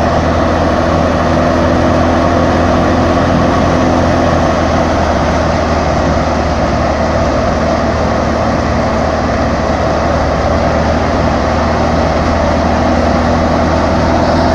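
A tractor-driven thresher running steadily while threshing: the tractor engine drives the thresher's belts and pulleys, with the drum and blower turning and straw and chaff blowing out through the machine.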